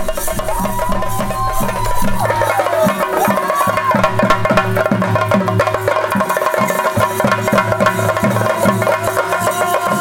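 Theyyam ritual drumming: stick-beaten drums playing a fast, steady rhythm with cymbals, and a high melody line sliding up and down in the first few seconds.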